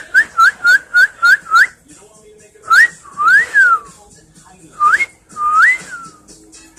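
Pet bird whistling: a quick run of short rising chirps, then a few longer whistles that rise and then fall.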